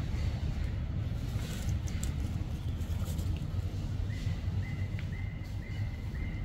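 Outdoor ambience with a steady low rumble like wind on the microphone or distant traffic. About four seconds in comes a run of five short, even high chirps, roughly two a second.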